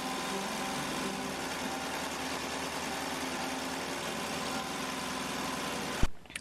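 A motor running steadily with an even hum, ending in a sharp click near the end.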